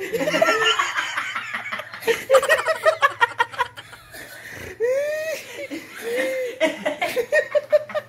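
Several young men laughing, in choppy giggles and bursts of laughter, with one high squealing laugh about five seconds in.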